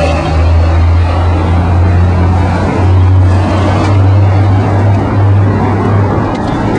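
Chicago 'L' elevated train running on the tracks: a loud, steady low rumble with a hiss of noise over it.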